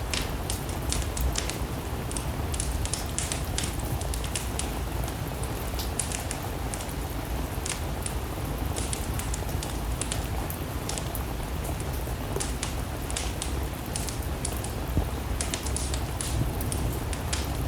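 Wood fire crackling in a fireplace, with many short sharp pops, over a steady hiss of rain and a low rumble.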